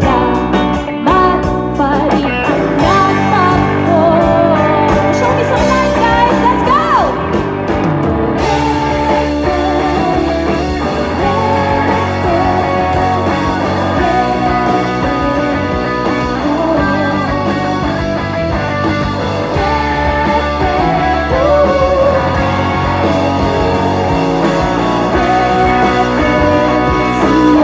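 Live pop-rock band playing: electric guitars, bass guitar and drums with a woman singing lead, as heard from within the crowd.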